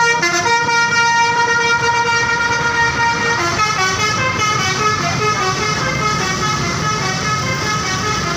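Basuri musical horn on a Kalebas bus playing a tune: one note held for the first few seconds, then a run of shorter notes stepping up and down in pitch, with a low engine rumble underneath.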